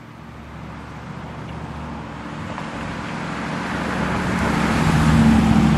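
1960 Chevrolet Impala's 348 cubic-inch V8 engine and tyres as the car drives up and passes close by, the sound growing steadily louder and peaking a little after five seconds in.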